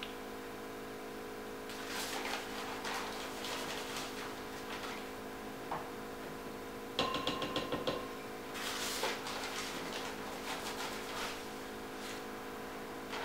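Scooping powdered sugar and peanut butter by hand: a measuring cup scraping in a plastic sugar bag and knocking against a glass mixing bowl, and a spoon scraping in a peanut butter jar. About seven seconds in comes a quick run of knocks with a brief ring, followed by a rustle.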